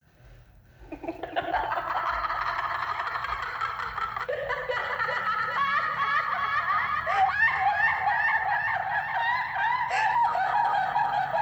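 Custom monster-voice sound effect: many overlapping, wavering high-pitched laugh-like cackles layered into one dense, unsettling chorus, starting about a second in and keeping on.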